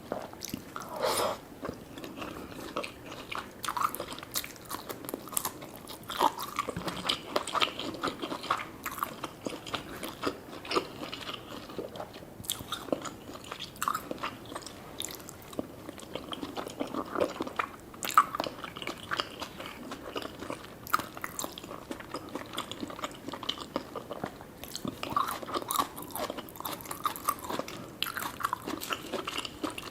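A person eating close to the microphone, chewing and biting with many quick, irregular crunchy and wet mouth sounds, as in an eating-sounds mukbang of sushi and gyoza.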